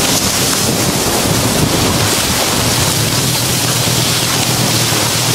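Loud steady rushing and swishing of tall grass and reeds scraping along a boat's sides as it is pushed through a choked channel, with a low steady motor hum underneath from about halfway in.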